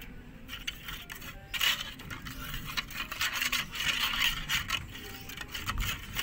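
A metal spoon beating eggs in a stainless steel bowl, making quick clinks and scrapes of metal on metal.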